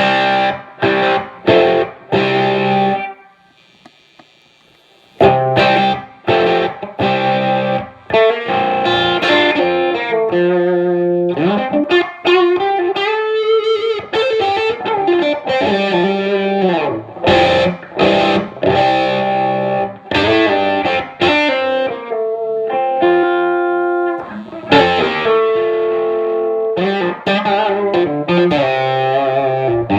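Electric guitar, a Gibson '58 reissue Les Paul, played through a Fuzz Face / Tone Bender MK1.5 hybrid fuzz pedal into a 1969 Fender Bassman amp: distorted riffs and lead lines with string bends. There is a short pause about three seconds in.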